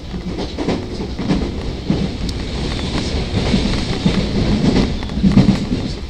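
Tobu 50000-series electric train running at speed, heard from inside the carriage: a steady rumble with the wheels' rhythmic clatter over the rail joints.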